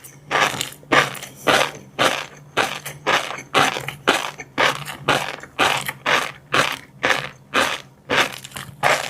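Close-miked chewing of crunchy fish roe and seafood, a steady rhythm of about two crunchy bites a second, with a faint low hum underneath.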